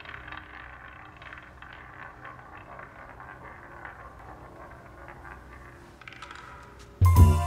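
Opening of a post-rock instrumental: a faint, crackling texture of small clicks and hiss over quiet low held notes, then, about seven seconds in, loud music comes in suddenly with piano, guitar and bass.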